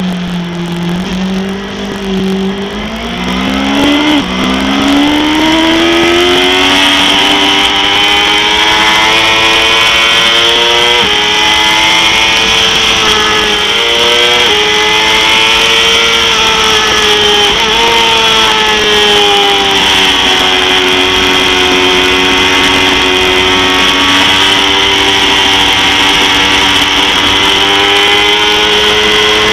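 2005 Yamaha R6's 600 cc inline-four engine at racing speed: revs low at first, climb steeply from about three seconds in, then run high with a few sudden steps in pitch. Steady wind rush on the microphone throughout.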